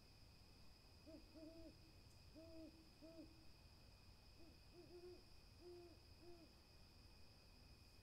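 An owl hooting: a series of about nine short, low, faint hoots, some in quick pairs, spread over several seconds.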